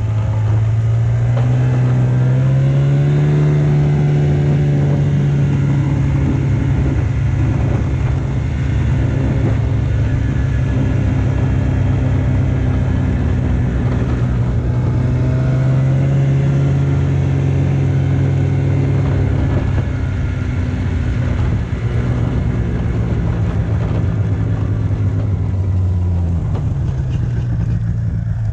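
Vehicle engine running steadily under way, its pitch rising about three seconds in and falling near the end as it slows and fades out.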